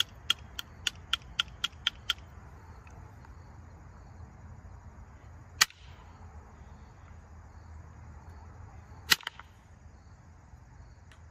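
Antler billet striking the edge of a flint point: a quick run of light, sharp taps, about four a second, for the first two seconds, then two harder single strikes a few seconds apart.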